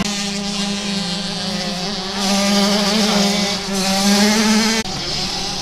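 Motocross motorcycle engines held at steady high revs, a level, wavering drone that cuts off abruptly about five seconds in.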